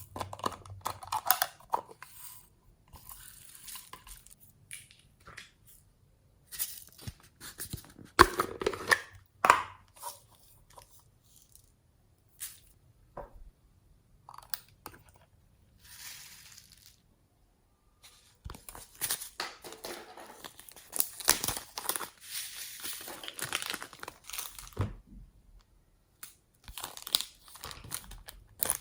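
Hands squishing, stretching and folding slime: bursts of sticky crackling and popping with short silent pauses between them.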